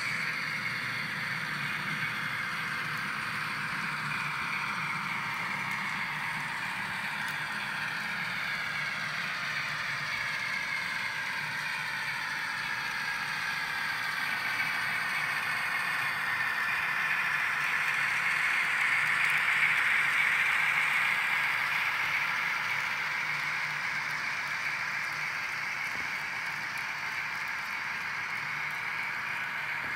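N-scale model train running on the layout: a steady whine from the Union Pacific diesel locomotives' motors, with the rattle of wheels on the rails. It swells louder for a few seconds about two-thirds of the way through.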